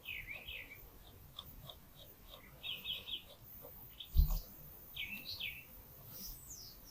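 Small birds chirping and trilling in the background, with one low thump about four seconds in.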